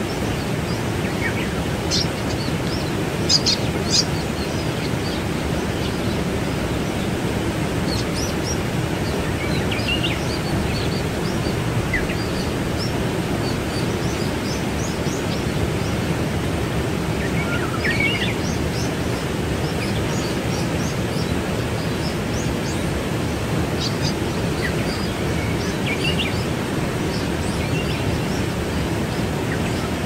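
Steady rushing of a waterfall, with small birds chirping briefly here and there over it, loudest about three to four seconds in.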